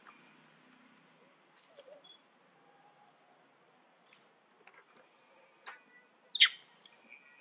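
Forest ambience: an insect's faint, evenly pulsing high trill runs throughout, with a few short chirps and scattered light clicks. Near the end comes one loud, sharp high call that falls steeply in pitch.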